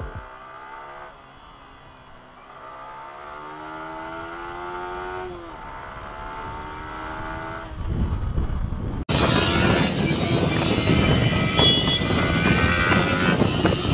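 Motorcycle engine running, its pitch rising slowly as it accelerates and then dropping. After a sudden break about nine seconds in comes the loud rush of wind and engine noise from riding.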